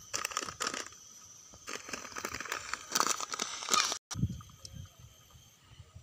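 Plastic seed bag crinkling and crackling as it is handled and seed is taken from it, in two spells. It cuts off abruptly about four seconds in, leaving only faint low sounds.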